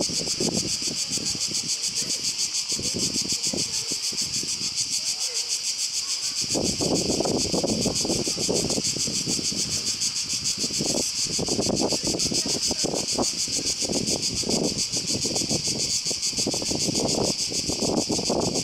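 Chorus of cicadas in pine trees, a steady high, rapidly pulsing buzz, over an uneven low background noise that comes and goes.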